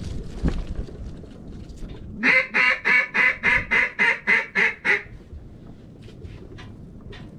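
A duck call blown in a quick string of about eleven loud, evenly spaced quacks, about four a second, to work circling ducks. There is low wind rumble underneath.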